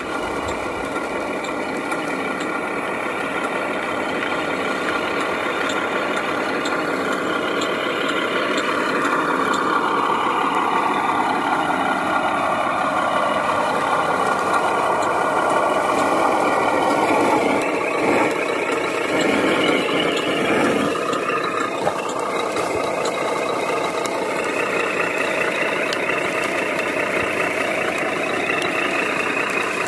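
Sound module of a 1/14-scale RC Mercedes 2638 truck playing a diesel truck engine through its small speaker while the model drives. The engine pitch glides down about a third of the way in, and a few knocks come about two-thirds through.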